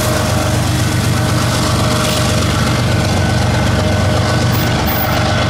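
Diesel locomotive BNSF 7732, the train's rear distributed-power unit, running under power with a loud, steady low engine drone as it moves off down the track.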